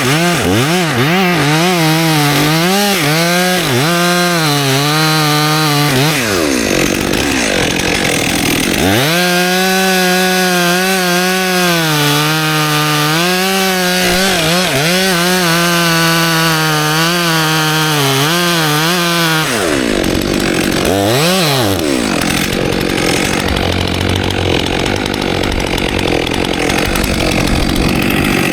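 Stihl MS 400 C two-stroke chainsaw cutting wood. For the first several seconds the engine revs up and down in quick pulses, then it holds high revs for about ten seconds. It drops off, revs briefly again, and runs rougher and noisier near the end.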